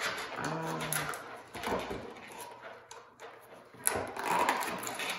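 Hands handling and prying open a racket's packaging box: cardboard and plastic rustling and scraping, with a sharp click about four seconds in. A brief hummed voice sounds at about half a second in.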